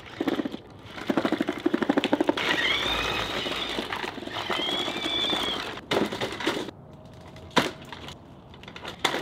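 Foster-Miller Talon bomb disposal robot driving on its tracks: a fast rattling clatter, then its electric drive motors whining up and back down twice as it speeds up and slows. Near the end come two sharp knocks, a couple of seconds apart.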